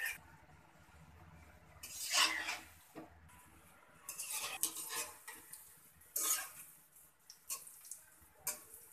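A metal spatula and a wire-mesh skimmer clatter and scrape against an aluminium wok, in about five short separate bursts, as fried palm fritters are scooped out of the oil. A faint sizzle of frying oil runs underneath.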